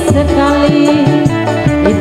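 Loud burok dangdut music: a wavering, ornamented melodic lead over a steady drum beat of about three strokes a second.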